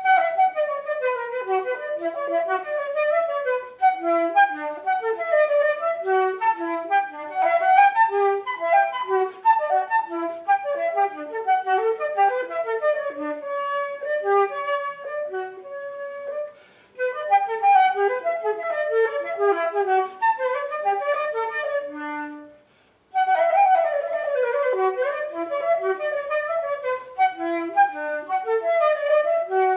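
Unaccompanied concert flute playing fast runs of short notes, with two brief pauses for breath, a little past halfway and about three quarters of the way through.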